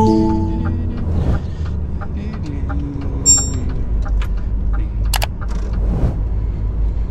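Tatra Phoenix tipper truck's diesel engine running with a steady low rumble, with light ticks repeating about twice a second over it. A short pitched tone sounds right at the start, a brief high beep about three seconds in, and a sharp click about five seconds in.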